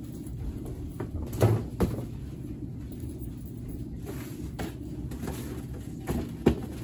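Knocks and thumps of items and cardboard boxes being handled during parcel packing: two louder knocks about a second and a half in, lighter taps after, and two more sharp knocks near the end, over a steady low hum.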